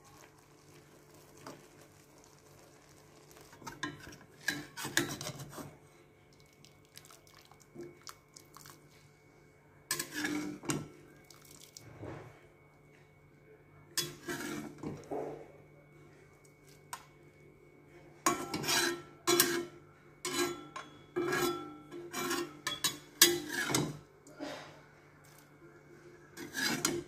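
A utensil scraping and clinking against a small metal wok as cooked instant noodles are stirred and lifted out into a bowl. The sound comes in irregular bursts with quiet gaps, and there is a quick run of clinks and knocks about two-thirds of the way through.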